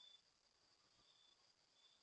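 Faint insect chirping: short high-pitched chirps about once a second over a steady high drone.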